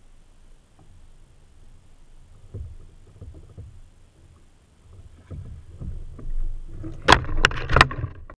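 Soft knocks and thumps of gear being handled in a plastic kayak while a fish is played on the rod, getting busier toward the end, then a few sharp, loud knocks as the landing net is brought out.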